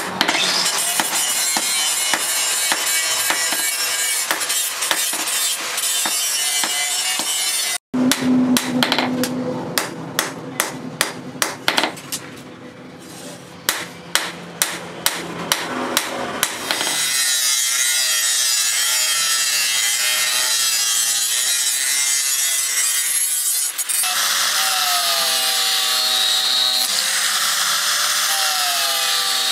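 A steady rasping noise for several seconds. Then hand-hammer blows on a steel post anvil shaping a machete blade, about two strikes a second. Then an electric angle grinder with a sanding disc runs against the blade, its whine dipping and rising as it is pressed on.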